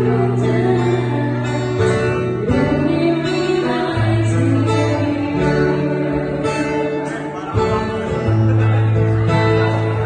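A woman singing with a man accompanying her on acoustic guitar, a live duo performance amplified through the venue's sound system.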